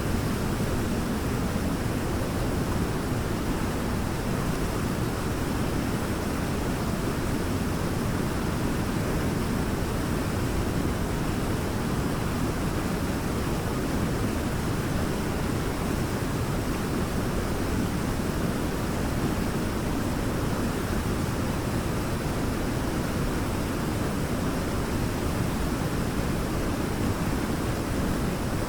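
Waterfall pouring steadily, a constant full rushing of water with no breaks.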